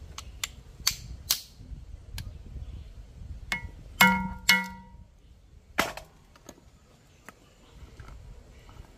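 Crab shells and claws snapping as they are cracked apart with a knife, with pieces dropping into a stainless steel bowl. About four seconds in, two ringing clangs from the steel bowl, half a second apart.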